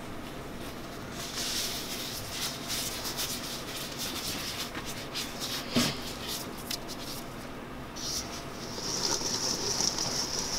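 Rustling and scattered clicks, with one sharp click about halfway, then from about eight seconds in a steady swishing hiss. The hiss is maraschino cherries being shaken in confectioners' sugar in a stainless steel bowl, coating them with sugar.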